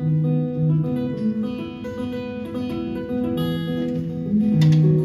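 Live band music without vocals: acoustic guitar strumming chords over sustained notes, with a hard strum about four and a half seconds in.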